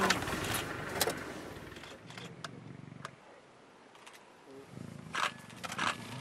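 Male lions growling while they fight, low and rough, loudest in the first second and again about five to six seconds in. A few sharp clicks fall in between.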